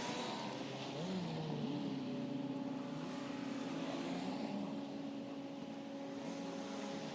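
An engine running with a steady hum, its pitch rising about a second in and then holding.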